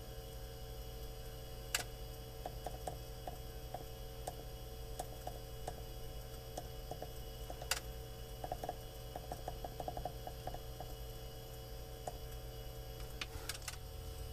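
Small plastic clicks of an aircraft engine monitor's front-panel push-buttons being pressed one at a time, with a quick run of presses about two-thirds of the way in and two sharper clicks, one about two seconds in and one just before the middle, over a steady low hum.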